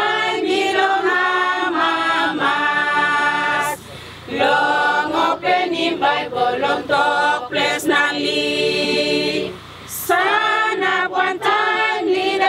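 A choir singing an original song of rejoicing, written for the opening of a Bible dedication. It comes in sung phrases with short breaks about four seconds in and again near ten seconds.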